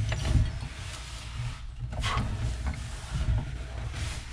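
Pipe wrench turning a new steel pipe nipple into its wall fitting: a few short metallic clicks and scrapes as the jaws bite and the threads turn, over a low rumble.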